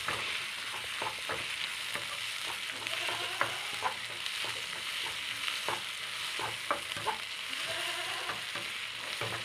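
Onions with ginger-garlic paste sizzling as they fry in a pan, stirred with a spoon that scrapes and taps against the pan at irregular moments, about one to two times a second.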